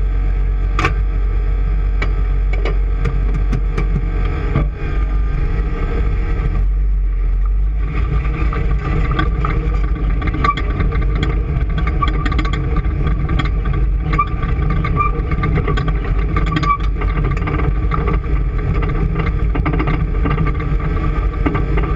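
Motorboat engine running steadily with a deep rumble. About seven seconds in, the higher part of the sound drops away for a moment, then returns.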